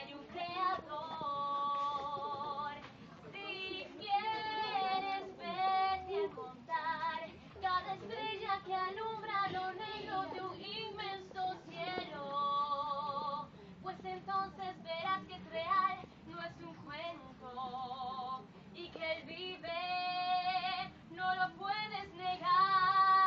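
Women's and children's voices singing a church hymn together, a slow melody with several long held notes.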